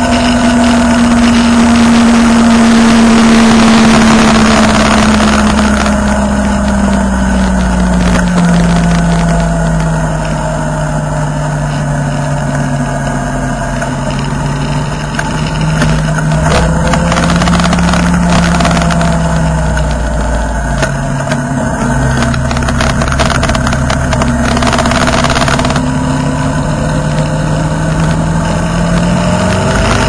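A motorcycle engine running on the move, with wind rushing over the microphone. The engine note falls slowly over the first ten seconds or so as the bike eases off, holds steady while cruising, and starts to rise again near the end. The wind noise is heaviest in the first few seconds.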